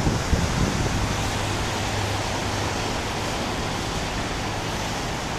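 Wind buffeting the microphone in the first half-second, over a steady, even rushing noise.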